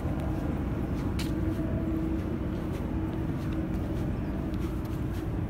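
Steady low outdoor rumble with a faint steady hum running through it.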